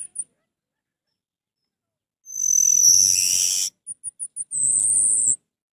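Orange-headed thrush (anis merah) singing: a loud song phrase about two seconds in, then four quick high chirps and a closing phrase with a steady high note.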